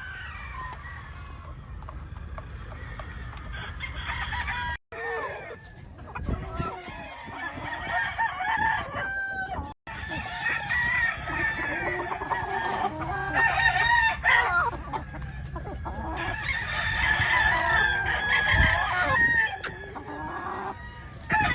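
Many gamefowl roosters crowing over one another, with clucking among them. The sound breaks off briefly twice.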